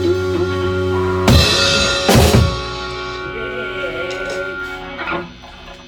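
Rock band ending a song: a held, wavering guitar chord, then two full-band crash hits about a second apart, with the cymbals and instruments left ringing and a smaller hit near the end.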